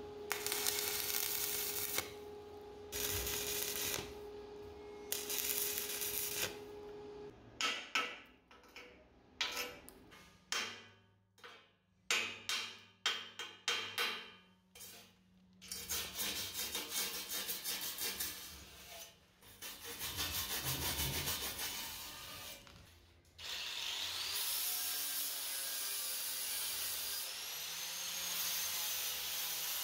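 Stick (arc) welding on steel box section: the arc crackles and hisses in three short runs. Then a hammer chips the slag off the fresh weld in a fast run of sharp metal strikes. Near the end a hand-held power tool runs steadily on the steel frame.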